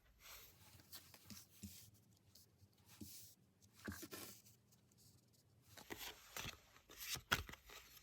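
Tarot cards being handled: faint paper rustles and sharp taps and clicks, coming most thickly in the last couple of seconds.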